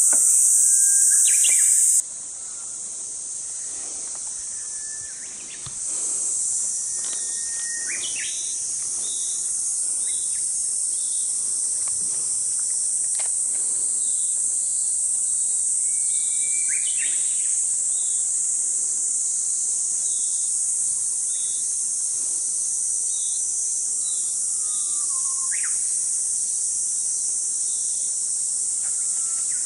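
Insects buzzing steadily in a high, unbroken drone. A bird gives short rising chirps now and then.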